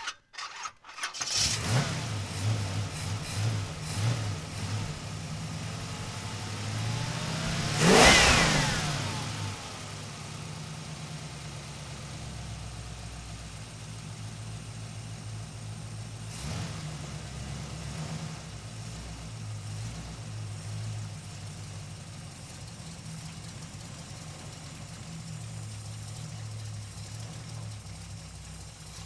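Muscle car engine starting about a second in and running unevenly for a few seconds. It is revved once sharply about eight seconds in, the pitch rising and falling back, and then settles into a steady idle.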